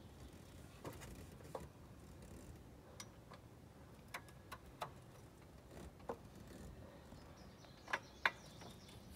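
Faint, irregular clicks and ticks from a jack being pumped to lift the transmission about an inch, taking the weight off the transmission mounts; two sharper clicks come close together near the end.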